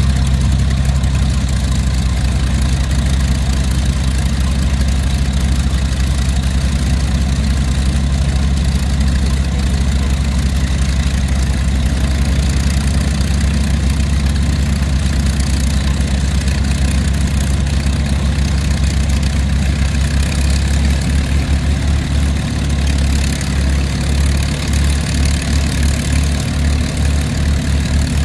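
A WWII fighter's Rolls-Royce Merlin V-12 engine idling steadily on the ground just after start-up. About two-thirds of the way through, the idle turns uneven and pulsing.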